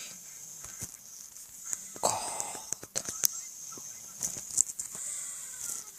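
A sleeping person snoring, with one wheezy snore about two seconds in. Faint clicks are scattered throughout over a steady high hiss.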